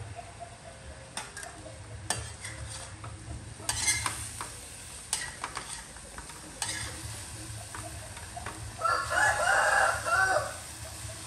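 Metal spatula scraping and knocking against a steel wok as vegetables are stir-fried, with a light sizzle. A rooster crows loudly for about a second and a half, some nine seconds in.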